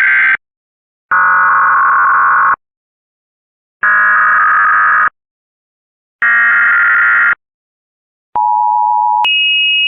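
Emergency Alert System header: the end of one burst of screeching digital data tones, then three more, each a second or so long with about a second's gap between them. Near the end a steady two-tone attention signal starts, jumps to a higher pitch after under a second, and holds.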